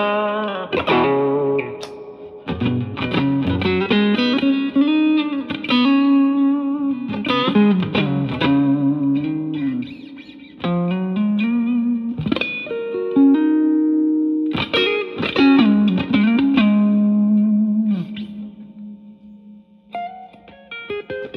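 Electric guitar (an SSS Stratocaster) played through a Yamaha THR10C modeling amp on its Brit Blues amp model: melodic single-note lead lines with string bends and long held notes, getting softer near the end.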